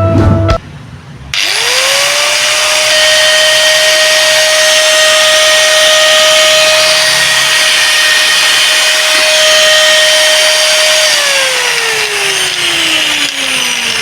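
Angle grinder, with its newly fitted gearbox, run with no load: it switches on about a second in and speeds up quickly to a steady high whine with a hiss. It holds there for about ten seconds, then is switched off and the whine falls as it winds down.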